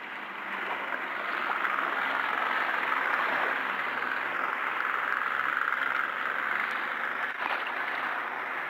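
Outboard motor running steadily as a small runabout gets under way, the sound building over the first second and then holding level.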